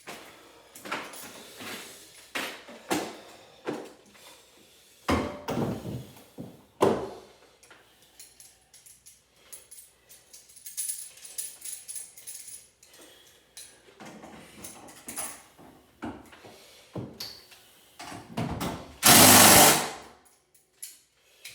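Tools and metal hardware being handled during garage door work: scattered clicks, knocks and clanks, with heavier knocks about 5 and 7 seconds in. Near the end comes a loud burst of noise about a second and a half long.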